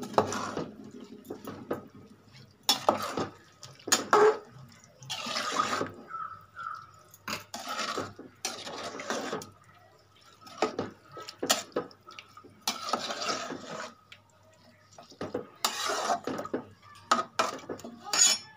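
Slotted metal spoon stirring rice through boiling water in an aluminium pot: irregular strokes of sloshing liquid and scraping, with sharp clinks of the spoon against the pot.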